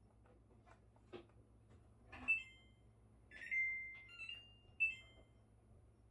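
Samsung Zipel refrigerator beeping: a few clicks and a knock, then several short electronic beeps, one held longer about three and a half seconds in, over a faint steady low hum.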